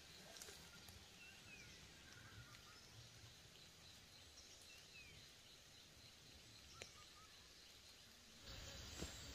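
Near silence: quiet forest ambience with a few faint bird chirps and a couple of soft clicks. A louder steady hiss comes in about a second before the end.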